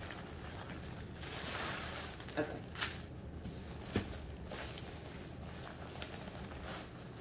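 Clear plastic wrapping crinkling and rustling as a handbag is pulled out of it, then tissue paper stuffing rustling, with a few light knocks between about two and a half and four seconds in.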